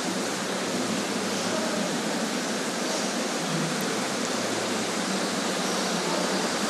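A steady, even hiss of rushing noise, like blowing air.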